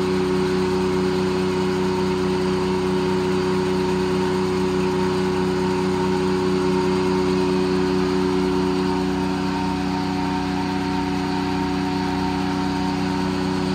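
Old-style circle sawmill running free at its operating speed of about 525 RPM, the head saw spinning with no log in the cut. A steady drone with several held tones.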